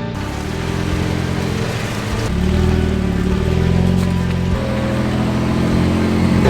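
Off-road vehicle engine running and revving, its pitch rising and falling a few times.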